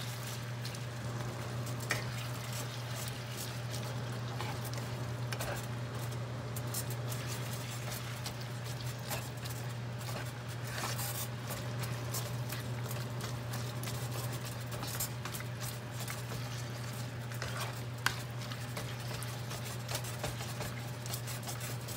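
A spatula stirring and breaking up browning ground beef with onions and green bell peppers in a skillet, with scattered scrapes and clicks of the spatula against the pan. A steady low hum runs underneath.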